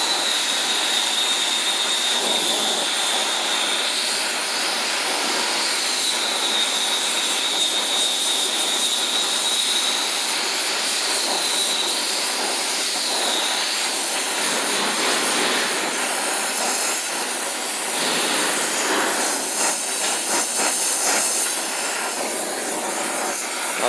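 Oxy-acetylene torch flame hissing steadily as it heats a copper-to-steel braze joint. A thin high whistle wavers over the hiss for roughly the first half, then fades out.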